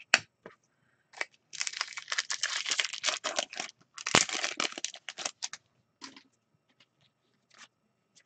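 Trading card pack wrapper being torn open and crinkled by hand. Two stretches of dense crackling, one starting about a second and a half in and another around four seconds, with a few sharp clicks around them.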